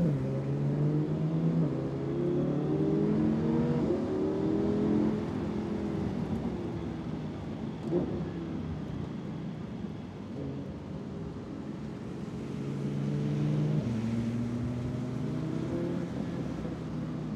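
Sports car engine heard from inside the cabin, its pitch climbing slowly as it accelerates and stepping down at gear changes, with a brief knock about eight seconds in.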